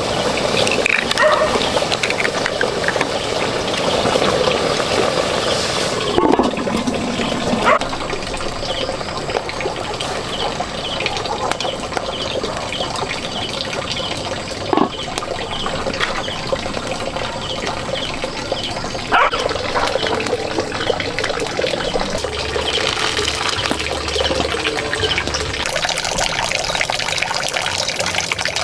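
Water running and splashing steadily, with a few short knocks.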